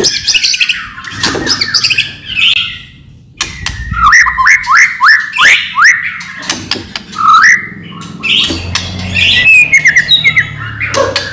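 White-rumped shama (murai batu) singing loudly in varied phrases of whistles and harsh chirps, with a brief pause about three seconds in, then a fast run of rising notes.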